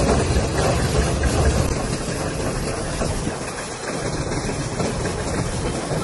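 Fishing boat's engine running under way, mixed with the rush of wind and water. The low rumble is heavier for the first couple of seconds, then eases.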